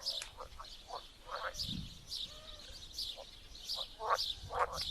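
A chorus of pond frogs giving short, overlapping croaks several times a second, with small birds chirping steadily above them.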